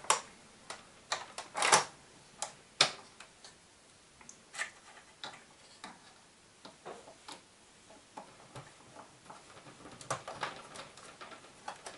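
Irregular clicks and small knocks of a screwdriver and plastic parts as the drive motor of an Epson XP-312 inkjet printer is unscrewed and worked loose. There are a few louder clicks in the first three seconds and a cluster of fainter ticks near the end.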